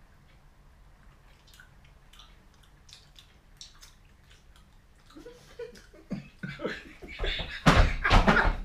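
Quiet chewing of jelly beans with small scattered mouth clicks, then several men break into loud laughter in the last second or two.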